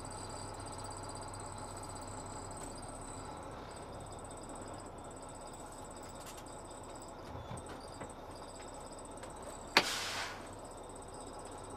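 Semi-truck tractor's diesel engine idling steadily, with one sudden sharp burst of compressed-air hiss about ten seconds in, fading over half a second, typical of the air brakes being set once the truck has stopped.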